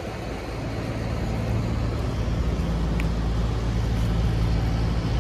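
Street traffic: a motor vehicle's engine running with a steady low hum that grows slowly louder.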